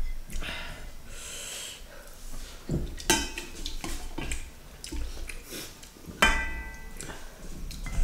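Tableware sounds of a meal: a spoon clinking and scraping on plates and bowls, with two sharper clinks about three and six seconds in, the second ringing briefly.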